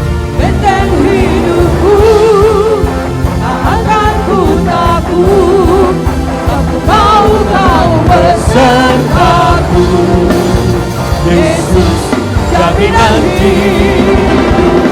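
Full-band worship song instrumental: a lead melody that wavers and bends in pitch over a steady bass and drum backing.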